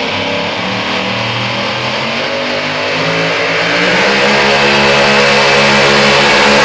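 Supercharged engine of a pulling truck running hard at high revs while it drags the sled, holding a fairly steady pitch and growing louder about halfway through as the truck nears.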